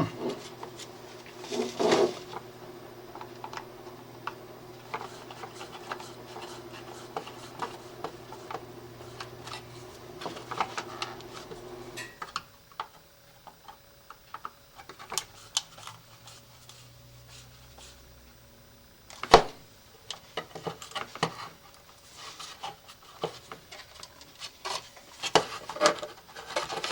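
Small clicks, taps and rubbing from hands handling wires and parts of an electrical box, with one sharp knock about nineteen seconds in. A steady low hum runs underneath and stops about twelve seconds in.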